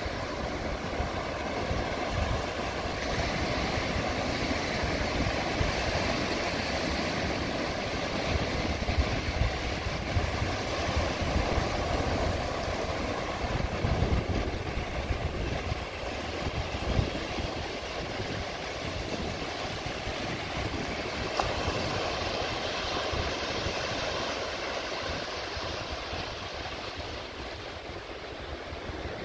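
Small Gulf waves breaking and washing up the sand in a steady, uneven hiss, with wind rumbling on the microphone.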